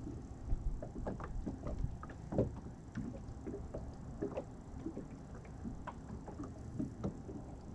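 Small waves lapping and slapping against a boat's hull, an irregular patter of light splashes and knocks over a low wash of wind and water.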